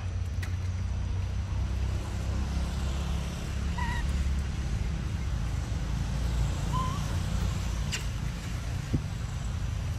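Steady low rumble of wind buffeting the microphone, with a few faint short chirps and light clicks over it.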